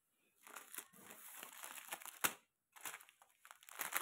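Plastic grocery packets crinkling as they are handled and picked up, with one sharp tap a little over two seconds in.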